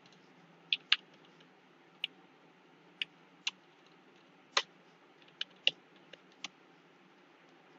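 Computer keyboard keystrokes: about a dozen separate, irregularly spaced clicks as a command is typed slowly.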